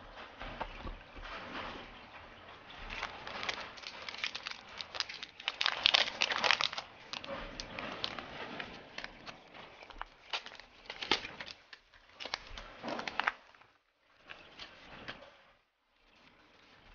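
Airsoft gearbox parts being handled and fitted into the gearbox shell: a run of light clicks, taps and rustling, busiest about six seconds in, quieter near the end.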